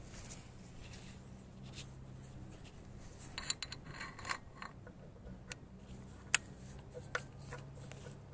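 Faint, irregular metallic clicks and taps as a 10 mm socket on a short extension and 1/4-inch wrench is worked onto a bolt deep in an engine bay. The clicks cluster in the middle of the stretch, with one sharper tap a little after six seconds, over a faint low hum.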